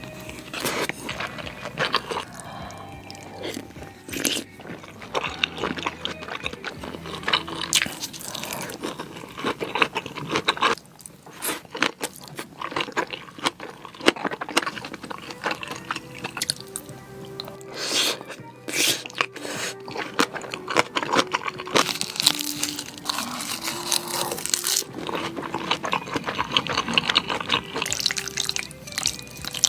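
Close-up mouth sounds of eating spicy noodles, irregular wet slurps and chewing, over background music.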